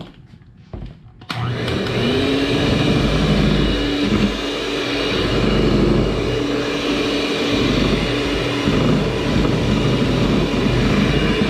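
Electric hand mixer switched on about a second in and then running steadily, its beaters whipping egg whites and sugar into meringue. A few light knocks come just before it starts.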